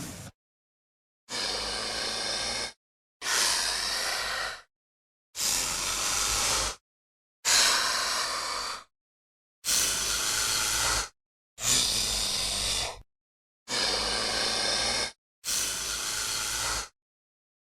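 Velociraptor sound effect: eight breathy hisses of about a second and a half each, played one after another with silent gaps between them.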